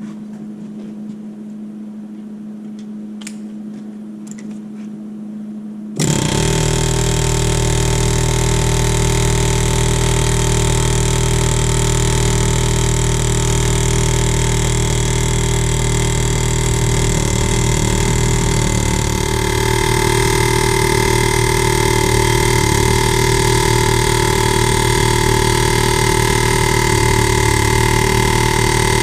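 Pneumatic air hammer starting suddenly about six seconds in and hammering continuously, a loud, steady rapid-fire rattle, used to shock a seized part on a Cat D4 crawler's drive sprocket loose. Before it starts, a low steady hum.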